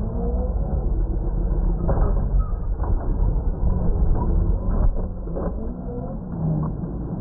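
Traxxas X-Maxx electric RC monster truck driving hard on dirt: the motor whirring up and down with the throttle over a steady low rumble, tyres scuffing the dirt, and several sharp knocks as the truck slams into the ground and the ramp.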